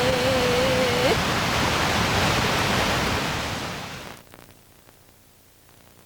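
A steady rushing noise with a held tone that stops about a second in; the noise fades away about four seconds in, leaving a faint hiss.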